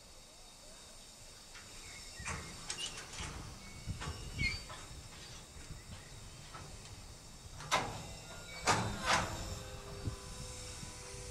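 Container freight train wagons giving irregular metallic clanks and knocks over a faint steady hiss. The loudest knocks come about eight to nine seconds in, and a thin squeal comes in near the end.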